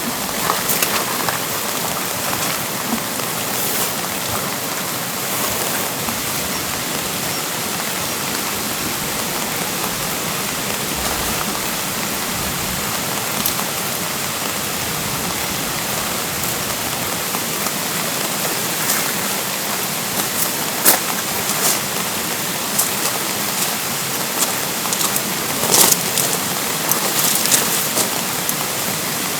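Steady rain falling, an even hiss with scattered sharper drop hits that grow more frequent near the end.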